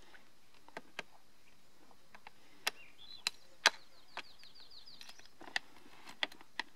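Thin plastic water bottle crackling and clicking in the hand while someone drinks from it, a scatter of sharp irregular clicks with the loudest a little under four seconds in. A faint high trill of rapid notes sounds from about three to five seconds in.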